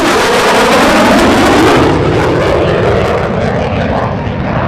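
USAF F-35A Lightning II's Pratt & Whitney F135 turbofan on a high-speed pass: loud jet noise comes on suddenly, and its pitch falls over the first couple of seconds as the jet goes by and recedes, easing off slightly toward the end.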